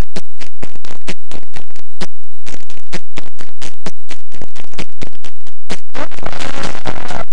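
Background music in a choppy, noisy electronic passage: rapid hard hits, five or six a second, that thicken into a dense wash of noise about six seconds in.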